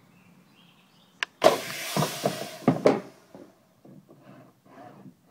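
Small battery-powered combat robot under test: a sharp click, then about a second and a half of loud mechanical noise with several heavy knocks as its weapon throws a piece off its top, followed by shorter motor bursts repeating a few times a second.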